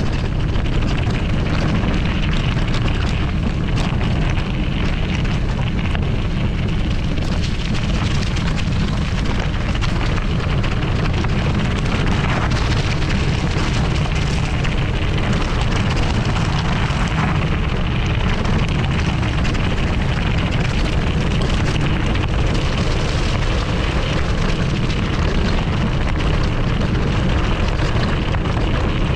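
Wind buffeting a GoPro's microphone in a steady rumble as a Kona Hei Hei mountain bike rolls fast over a gravel forest track, with tyre crunch and many small clicks and rattles throughout.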